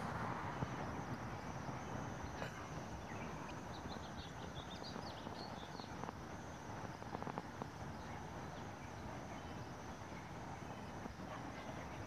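Steady outdoor background noise, with a few faint, brief high chirps about four to five seconds in and some light clicks a little later.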